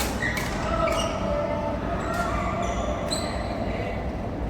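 Badminton rally: rackets striking a goose-feather shuttlecock with sharp smacks at irregular intervals, with short shoe squeaks on the court floor.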